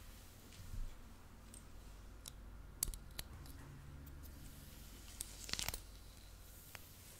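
Faint ASMR scratching: a few sharp, light clicks and crackles, the loudest just before three seconds in and a short cluster around five and a half seconds, over a steady low hum.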